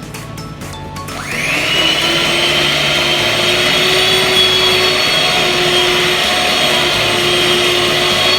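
Small electric kitchen appliance motor, the kind used to mix cake batter, switching on about a second in with a quick rising whine and then running steadily at high speed, over background music.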